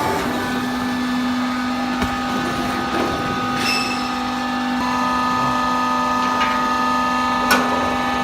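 Vertical cardboard baler running with a steady machine hum, its tone changing about five seconds in, with a few short metallic clanks, one ringing briefly.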